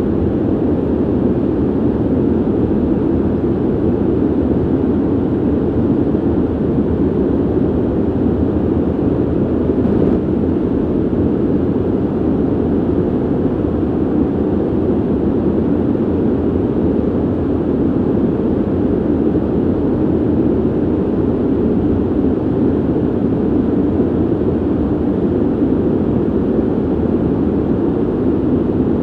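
Ventilation system's steady rushing air noise, low-pitched and even, with little hiss.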